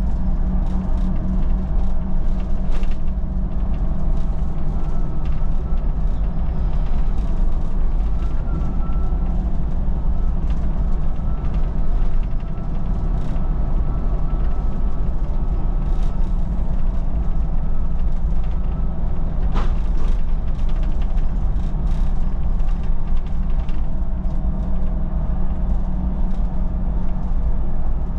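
Solaris Urbino 12 city bus under way: a steady low drone from the engine and drivetrain, with frequent small rattles and creaks from the body and fittings. A faint thin whine runs through the middle, and there is one sharper clack about two-thirds of the way through.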